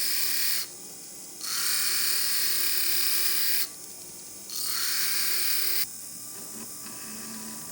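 Small rotary tool grinding down the worn prongs of a silver ring: a high hiss in three spells of one to two seconds with short pauses between them. It stops about six seconds in.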